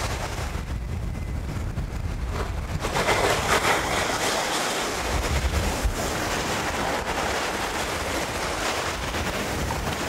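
Small Baltic Sea waves breaking and washing up on a sandy shore, with one louder wash about three seconds in. Wind on the microphone adds a low rumble underneath.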